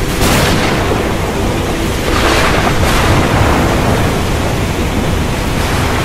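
Thunderstorm: deep, continuous thunder rumbling under a rushing storm noise, swelling louder twice, once just after the start and again about two seconds in.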